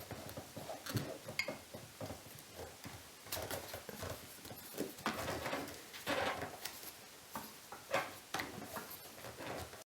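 Light, irregular clicks and clinks of small metal parts and tools being handled on a workbench.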